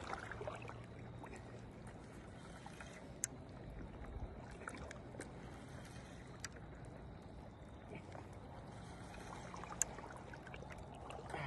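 Faint flowing-water noise at the shoreline, with a low steady hum and a few isolated sharp clicks.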